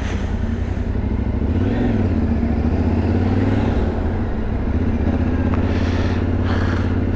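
Yamaha Ténéré 700's parallel-twin engine running at low revs on its stock exhaust while ridden slowly in traffic, the revs rising gently a couple of times.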